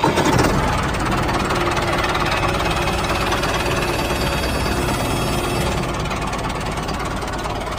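Tractor engine running steadily while the tractor drives along, easing off slightly toward the end.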